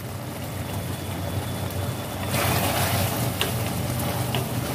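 Okra in mustard-poppy-seed gravy simmering in a steel kadai, over a steady low hum. About two seconds in, a wooden spatula starts stirring it, giving a louder wet, sloshing noise with a couple of light taps against the pan.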